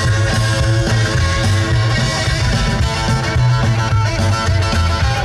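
Live rock-and-roll band playing with upright double bass, drum kit and electric guitar: a steady rhythmic bass line under guitar, no vocals in this stretch.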